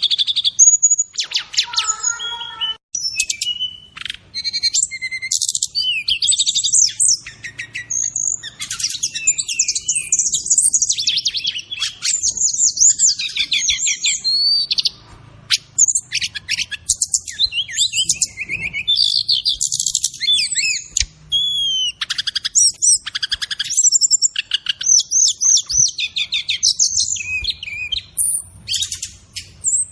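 Brown-chested jungle flycatcher (SRDC) singing a long, fast, varied song of chirps, rapid trills and whistled glides, with only short breaks.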